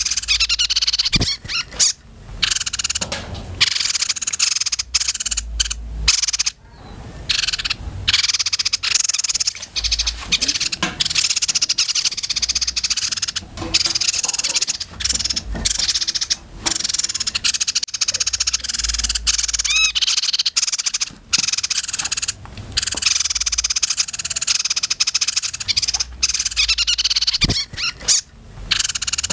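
Small caged songbirds singing and chattering almost without a break in fast, high-pitched trilling phrases, with short pauses between bursts.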